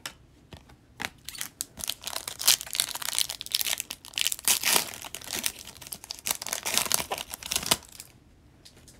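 A foil hockey trading-card pack (2020-21 O-Pee-Chee Platinum) being torn open by hand: a dense crackle of tearing, crinkling foil from about a second in until shortly before the end, with a few light clicks before it.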